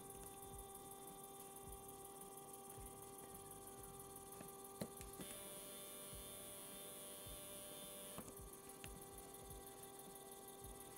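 NEMA 17 stepper motor on an A4988 driver, humming faintly with a few steady tones. The tone changes about five seconds in and again about three seconds later, as the driver is switched between full-step and quarter-step microstepping.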